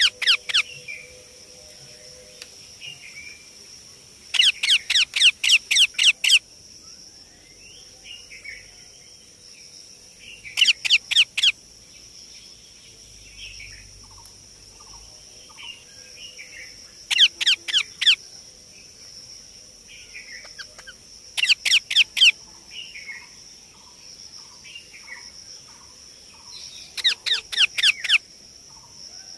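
Baby Indian ringneck parakeet calling in loud bursts of rapid, shrill chirps, each burst a second or two long, repeated about every five seconds. Softer chirps come between the bursts over a steady high insect-like drone.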